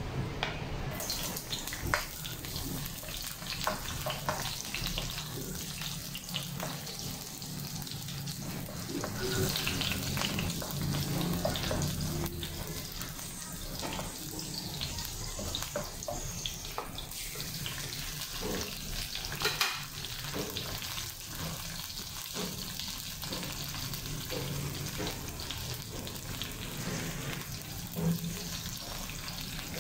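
Sliced onions and tomatoes sizzling in hot oil in a nonstick wok, the sizzle starting about a second in as they hit the pan. Now and then a spatula clicks and scrapes against the pan as they are stirred.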